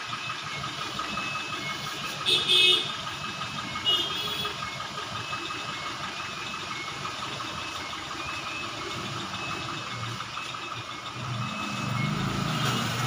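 Road traffic: a steady background of vehicle noise with two short horn toots, about two and a half and four seconds in, and an engine rumble building louder near the end.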